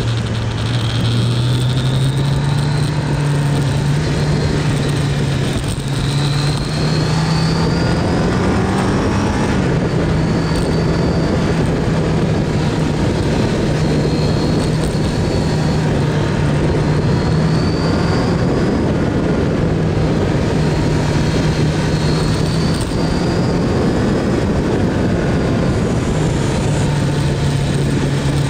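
Kawasaki GPZ900R's inline-four engine running under way through a run of bends, its pitch rising and falling a little every few seconds as the throttle opens and closes, over steady wind and road noise on the camera.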